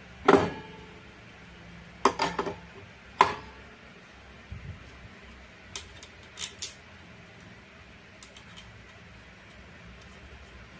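Metal parts of a Honda Scoopy's CVT, its clutch bell and pulley, clanking and clinking as they are handled by hand. A loud ringing clank comes about a third of a second in, then a quick cluster of knocks around two seconds and another clank about three seconds in. Lighter clicks follow, and it goes quiet for the last few seconds.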